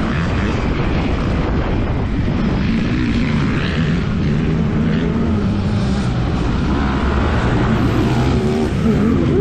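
Yamaha WR155R's 155 cc single-cylinder four-stroke engine running under changing throttle as the bike is ridden, its pitch wavering up and down and rising near the end, over a steady rushing noise.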